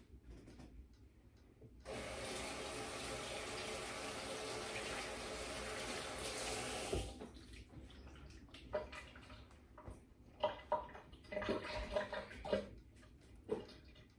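Kitchen tap running steadily for about five seconds, starting about two seconds in and shutting off, followed by a series of light knocks and clinks.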